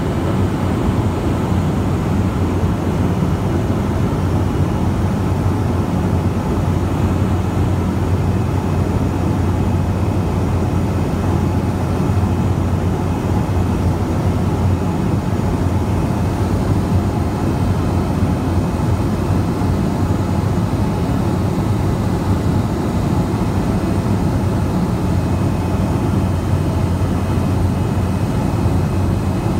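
Seaplane's propeller engine droning steadily, heard from inside the passenger cabin: a constant low hum with rushing noise over it.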